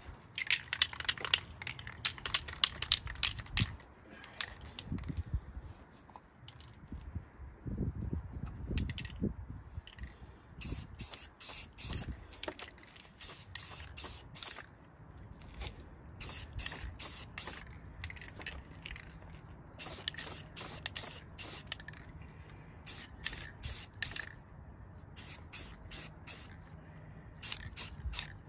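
Aerosol spray-paint can hissing out in many short bursts, with brief gaps between them.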